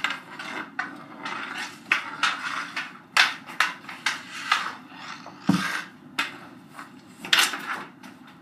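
Hockey sticks knocking and scraping on a concrete floor during indoor stick-handling and battling, a string of sharp clacks with a heavier thump about five and a half seconds in.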